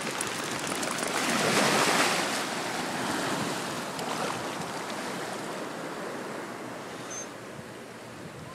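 Ocean surf washing in around the legs in shallow water, a rushing hiss that swells about a second in and then slowly dies away.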